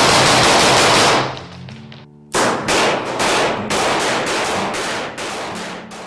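An AR-15-style rifle firing a fast string of shots that stops about a second in, then, after a short pause, about a dozen evenly spaced shots at roughly three a second, with music playing underneath.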